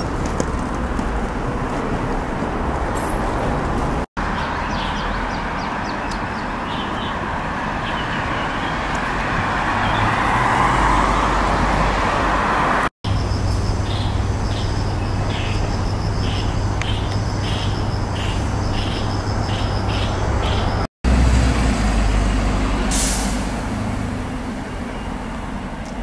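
City street traffic: vehicle engines and road noise in several recordings spliced together, with three brief dropouts where they are cut. In one segment a steady low engine drone runs under a run of evenly spaced high chirps, and near the end there is a short hiss.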